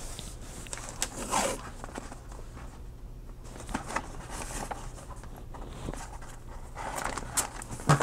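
Handling of washi tape and thin receipt paper. There is light rustling and tapping as the tape is pressed along the paper's edge, with short scraping sounds about a second in and again near the end.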